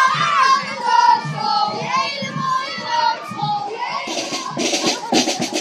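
A group of children singing together as they march. About four seconds in, a marching band with drums and brass takes over, its drum beating steadily.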